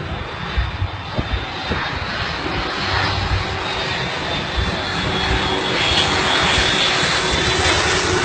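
Aircraft engine noise: a steady rushing drone with a thin high whine, growing gradually louder.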